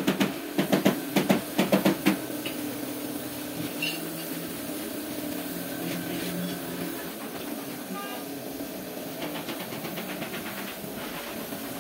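Compressed-air gravity-feed paint spray gun hissing steadily over a low machine hum, with a rapid clatter of clicks in the first two seconds.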